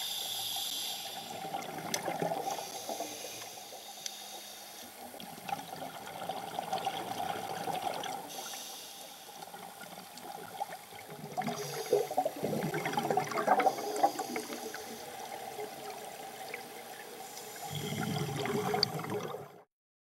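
Underwater water noise with bubbling rushes, louder in irregular bursts a little past the middle and again near the end, then cutting off suddenly.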